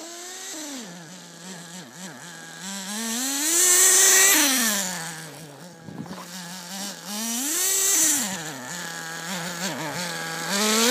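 Redcat Racing Tornado S30 RC buggy's small nitro engine idling with a high buzz and revving up and back down three times, about four seconds in, about eight seconds in and again at the end; the first rev is the loudest.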